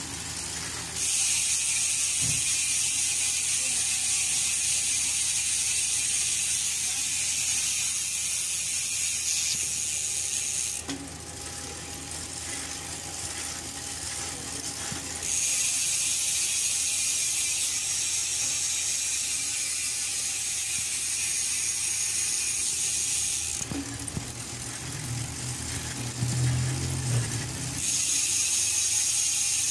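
GUB 1351 six-pawl rear bicycle hub freewheeling: a fast, loud, high clicking buzz of the pawls over the ratchet as the wheel coasts. The buzz runs in three long stretches, twice dropping away to quieter spells of a few seconds.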